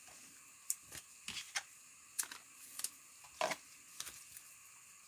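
Football trading cards being handled and flipped through: a dozen or so light, irregular clicks and snaps of card stock, the sharpest about three and a half seconds in.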